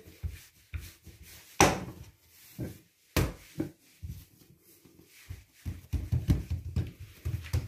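Wooden rolling pin knocking on the counter a few times while donut dough is rolled out, then a run of soft thumps from about two-thirds of the way in as hands pat and press the dough flat on the countertop.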